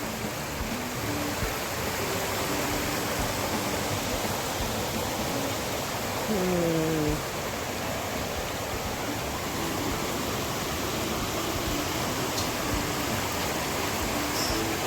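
Rushing river water running over rapids, a steady, even rush of noise.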